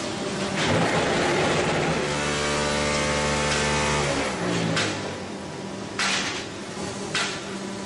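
QT4-20C concrete block making machine running through its cycle: a rushing mechanical noise, then a steady hum with several even tones for about two seconds in the middle, followed by short sharp noisy bursts near the end.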